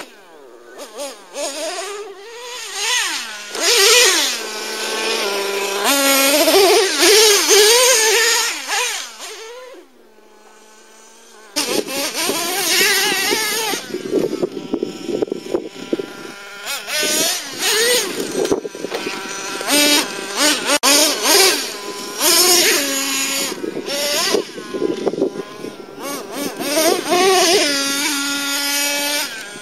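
Traxxas T-Maxx nitro RC truck's modified 3.3 two-stroke glow engine, with a drilled-out resonator pipe, revving high and dropping back over and over under throttle. It falls to a lower steady note for a moment about ten seconds in, then revs hard again.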